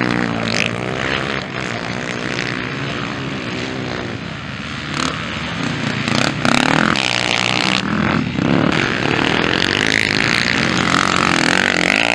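Motocross dirt bike engines revving hard, the pitch repeatedly rising and falling as the throttle opens and closes; several bikes pass in turn.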